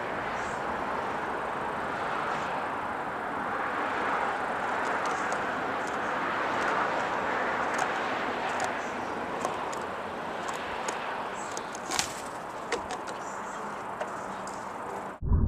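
Steady outdoor background hiss with a few light clicks and taps scattered through it, the sharpest about twelve seconds in.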